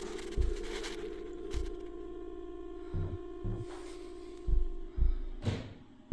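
A steady electronic hum-like tone from an old device, with several dull low knocks; the tone fades out near the end.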